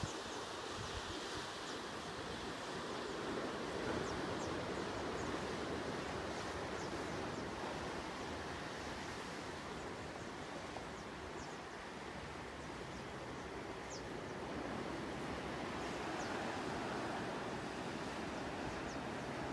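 Steady outdoor ambience of wind and ocean surf breaking on rocks below a sea cliff, swelling and easing gently, with a few faint high ticks.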